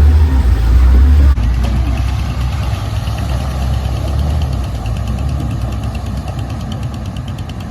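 An off-road vehicle's engine running steadily with a fast, even ticking rhythm. It comes in after a sudden cut about a second in, which ends a stretch of heavy bass.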